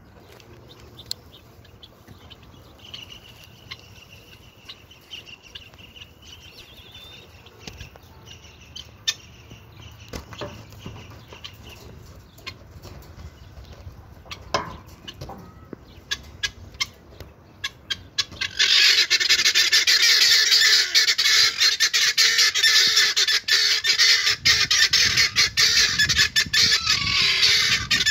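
Helmeted guineafowl giving harsh, rapid, rattling calls that start suddenly about two-thirds of the way in and stay loud and continuous to the end. Before that there are only faint scattered clicks.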